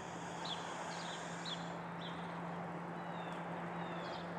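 A small bird chirping over and over, short high chirps about twice a second, over a steady low hum and outdoor background noise.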